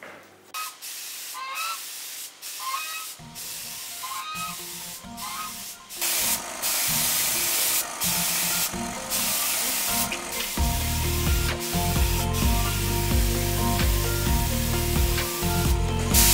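A gravity-feed paint spray gun hisses in short on-and-off bursts as it sprays paint onto a car body. Background music builds under it, with a heavy bass beat coming in about ten seconds in.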